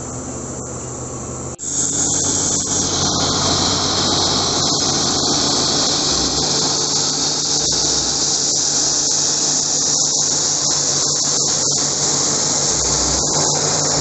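A vehicle engine running steadily. About one and a half seconds in, a loud, steady high-pitched hiss cuts in abruptly over it and holds on.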